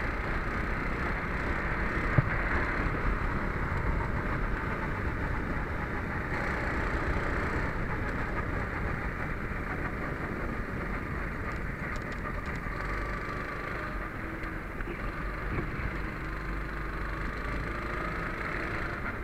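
Racing kart's engine running at speed, heard from the driver's seat, its pitch shifting with the throttle through the corners and rising near the end, under a steady rushing noise. A single sharp knock about two seconds in.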